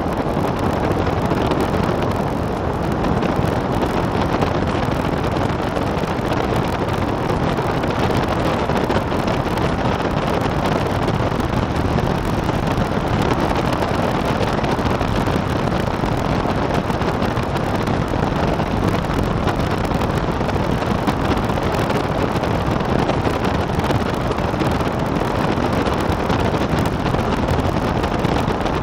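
Steady rushing wind on the microphone of a camera mounted on a gyrocopter in flight, mixed with the aircraft's engine and rotor noise, unbroken throughout.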